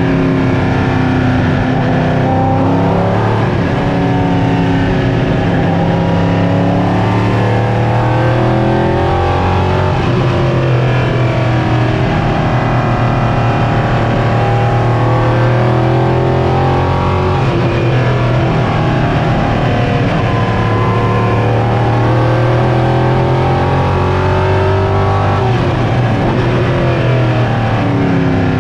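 Ligier JS P3's Nissan 5.0-litre V8 heard from inside the cockpit at racing speed, revving up through the gears with sudden drops in pitch at each upshift, then falling in pitch under braking and downshifts, several times over.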